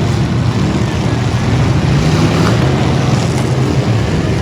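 Engines of several stock V8 demolition derby cars running loudly together, a steady dense low drone with no distinct crash.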